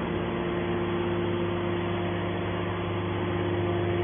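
Hydraulic metal baler's power unit, its motor and pump running with a steady hum of several held tones.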